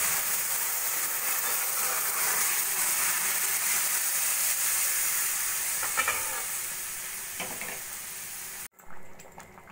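Boiled arhar dal with vegetables poured onto hot oil, ghee and cumin-chilli tempering in a kadai, sizzling steadily and slowly dying down as the liquid cools the fat. The sound cuts off abruptly near the end.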